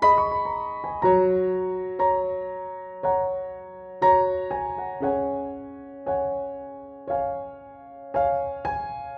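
Slow background piano music, a chord or note struck about once a second and left to ring out.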